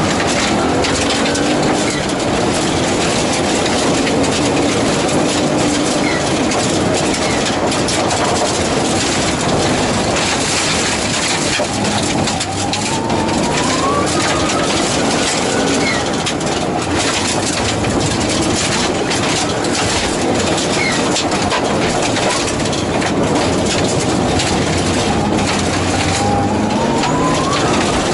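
Subaru Impreza GC8 rally car's flat-four engine pulling hard, heard from inside the cabin, its revs climbing several times as it accelerates through the gears. Over it, tyre and gravel noise with many sharp ticks of stones striking the body.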